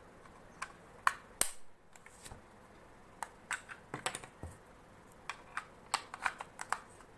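Sharp plastic clicks and snaps of two AA batteries being fitted into a toy RC car's remote controller and its battery cover handled, irregular, with two louder snaps about a second and a second and a half in and a quick run of clicks near the end.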